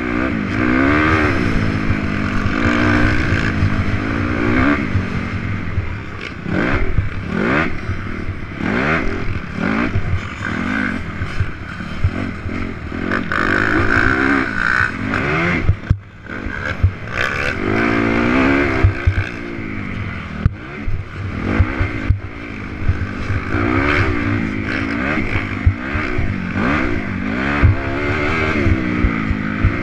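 Honda CRF250R's single-cylinder four-stroke engine being ridden hard, its revs climbing and dropping back over and over through the ride. Wind rushes over the microphone, with short knocks and clatter from the bike over the bumps.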